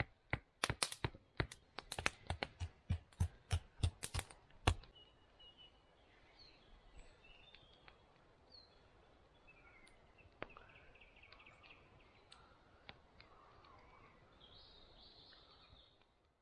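An upright wooden stick for a cooking spit being hammered into the ground: a quick run of sharp knocks, about four a second, that stops about five seconds in. After that, faint bird chirps.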